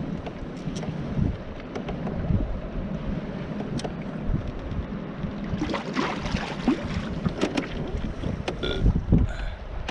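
Wind rumbling on the microphone, with irregular knocks and clicks over it that get busier a little past halfway.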